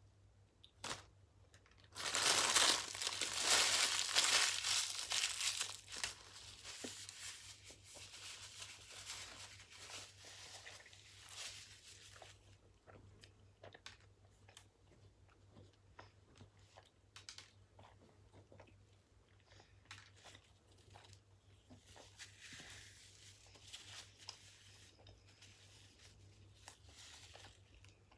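Paper fast-food wrapper crinkling and tearing, loudest for a few seconds from about two seconds in and dying away, followed by scattered small clicks and rustles of eating close to the microphone.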